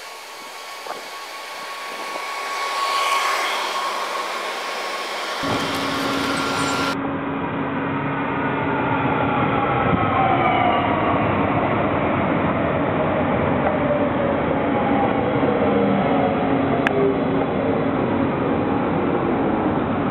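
Stadler FLIRT electric multiple unit running into the station: a rising rush of wheels on rail as it approaches, then the whine of its electric traction motors, several tones gliding down in pitch over a steady rumble as it slows.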